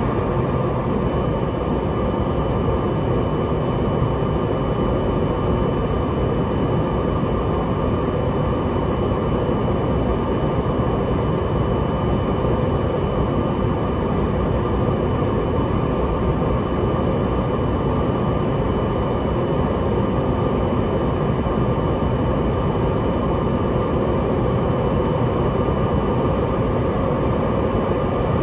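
Cessna 208B Grand Caravan's Pratt & Whitney PT6A turboprop engine and propeller running steadily, heard inside the cockpit on descent to land, with a thin, steady high whine over the drone.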